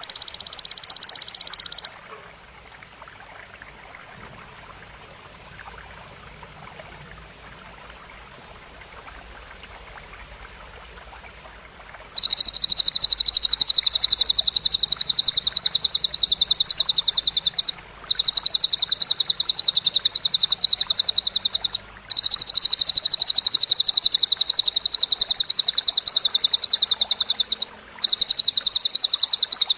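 Masteran bird-training audio: a loud, high-pitched, rapidly pulsed buzzing trill. A first burst cuts off about two seconds in. After about ten seconds of faint hiss, the trill returns in long bouts of several seconds separated by short breaks.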